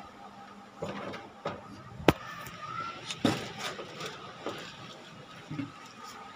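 Handling noise from a phone held close to the microphone: rustling against clothing, with a sharp click about two seconds in and another knock about a second later.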